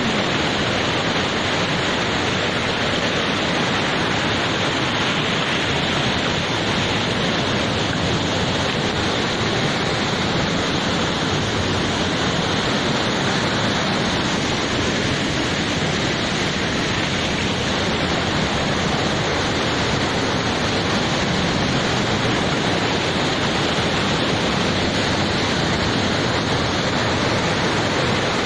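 Muddy flash-flood water rushing down a rocky hillside stream bed, a steady, unbroken rush of noise.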